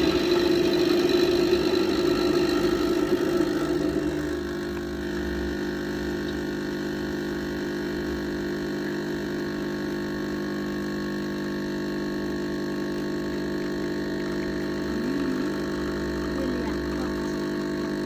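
Milesto Elaine M3 espresso machine's pump running steadily as a shot is pulled through a bottomless portafilter, louder for the first four seconds, then settling to a slightly quieter even hum while the espresso begins to drip and then flow into the cup.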